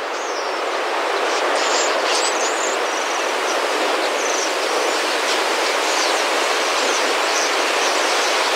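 Steady rushing whoosh of a huge flock of starlings flying close overhead in a murmuration, with scattered short high calls from the birds.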